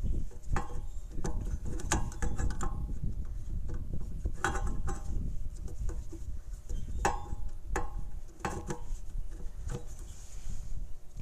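Hand tools clicking and clinking against the metal of a golf cart's engine at the carburettor, in irregular separate knocks rather than a steady rhythm.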